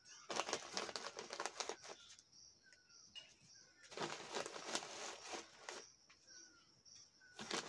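Newspaper rustling and crinkling as hands fold and press it around peaches packed in a cardboard box, in three bursts: one at the start, one midway, one near the end.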